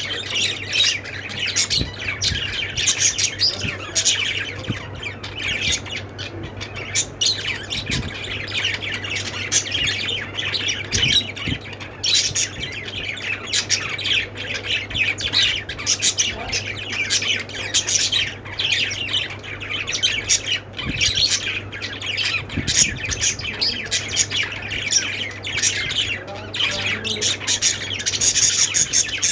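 A flock of small pet parrots, budgies and lovebirds, chattering, chirping and squawking without a break. A steady low hum runs underneath.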